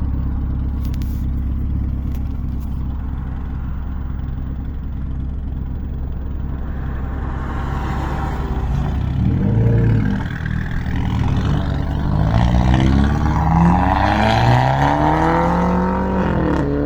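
Renault Clio RS 1.6 turbo four-cylinder with a downpipe, heard through an open window: a steady low engine drone, then from about halfway the engine note rises twice, each rise cut by a sudden drop as the EDC gearbox shifts up. The engine is not yet warmed up.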